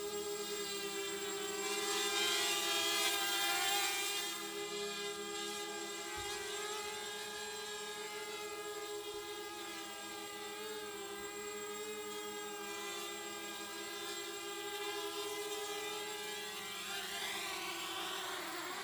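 Mini racing quadcopter hovering: the steady, wavering whine of its four brushless motors and propellers, pitch shifting slightly with throttle corrections and a little louder a couple of seconds in.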